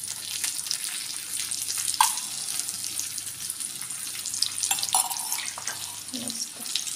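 Semolina-coated pomfret shallow-frying in oil on a flat tawa over medium heat, sizzling and crackling steadily, with a few brief louder sounds about two seconds and five seconds in.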